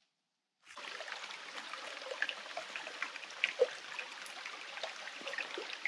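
A small, shallow forest creek trickling over stones, a steady wash of water with many little gurgles and drips. It starts suddenly just under a second in, after a moment of silence.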